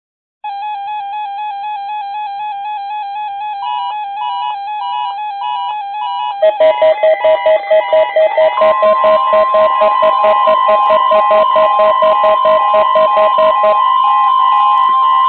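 Several NOAA weather radio receivers sounding their alert tones together, set off by a Required Weekly Test. A warbling tone starts first. A beeping alarm joins about three seconds later, then a louder, rapidly pulsing alarm about six seconds in, then a steady tone about eight seconds in.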